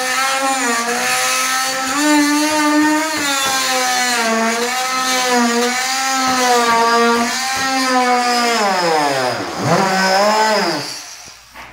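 Handheld power tool cutting drywall below a countertop: a steady motor buzz whose pitch wavers as the blade loads and frees up in the cut. Near the end the pitch drops sharply and climbs back, then the tool stops about eleven seconds in.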